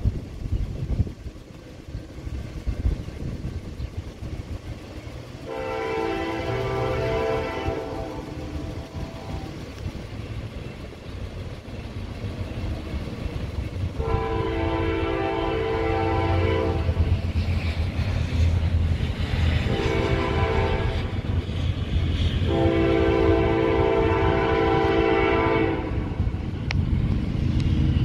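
Norfolk Southern AC44C6M locomotive's multi-note air horn blowing the grade-crossing signal, long, long, short, long, over the low rumble of the approaching train, which grows louder.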